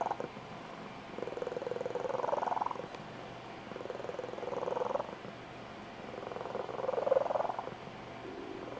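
Blue Point Tonkinese cat purring with a squeaky, high-pitched trilling purr. It comes in three drawn-out phrases a couple of seconds apart, each rising in pitch at its end, with quieter purring between them.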